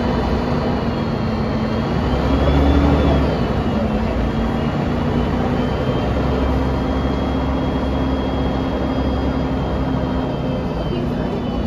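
Interior sound of a 1999 Mercedes-Benz O405NH city bus driving: the rear-mounted engine and drivetrain running with a steady low rumble and a high whine. The whine and the rumble swell and rise then fall back about two to three seconds in, and then hold steady.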